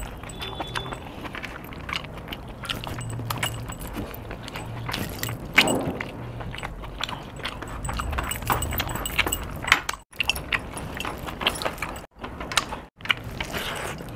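Close-up hand-eating sounds: fingers squishing and mixing rice with green chicken masala on a plate, with many short metallic clicks from the eater's rings and chain bracelets. The sound cuts out briefly three times in the second half.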